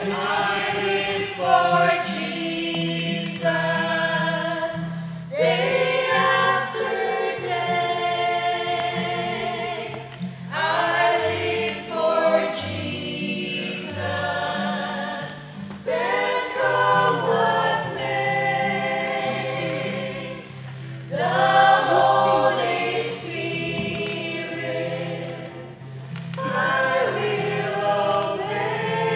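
A group of voices singing a Christian song together, in phrases a few seconds long with short breaks between them, over low sustained notes that change in steps.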